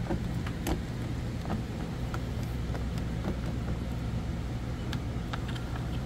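A steady low hum from a running motor or engine, with a few faint sharp clicks of metal on metal as a hand screwdriver works the bolts of a camper door latch.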